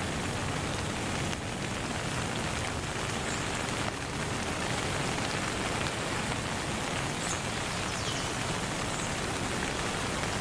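Steady rain, an even hiss with no changes, with a few faint high chirps over it.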